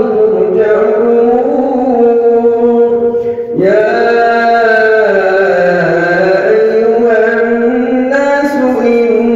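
A solo male voice reciting the Quran in slow, melodic tajwid, drawing out long held notes that bend up and down. One phrase ends about three seconds in, and after a brief pause for breath the next phrase begins.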